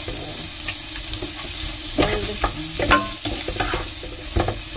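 Sliced onions sizzling in oil in a nonstick frying pan, stirred with a wooden spatula that scrapes and knocks against the pan at irregular intervals over a steady frying hiss.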